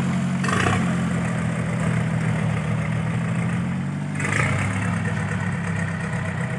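Engine of a homemade open-engined farm truck running steadily at low revs while the truck drives slowly along a dirt track.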